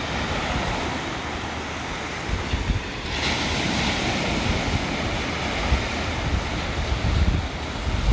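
Ocean surf: waves washing on the shore, with a wave breaking and hissing up about three seconds in. Wind buffets the microphone with uneven low rumbles.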